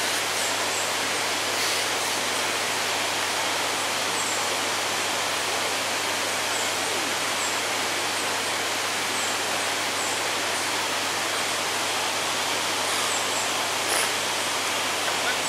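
Steady, even rushing noise, like running water, with a few faint high chirps now and then and a brief louder sound near the end.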